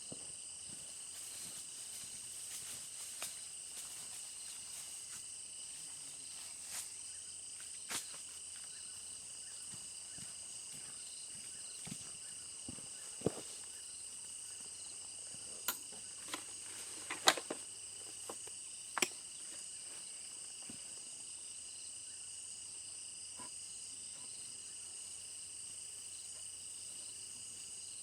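Insects chirring steadily at several high pitches at once, with scattered sharp clicks and knocks over it, the loudest about seventeen seconds in.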